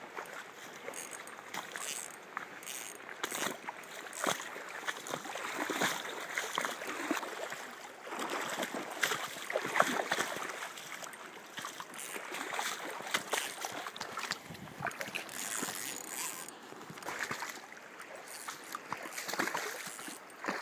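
River water rushing and sloshing, broken by many short, irregular splashes.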